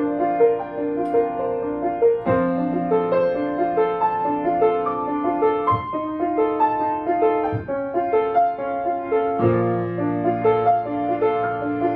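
Grand piano played solo: quick, flowing broken-chord figures in the middle register over low bass notes struck about every two seconds, with a deeper bass note held from about nine and a half seconds in.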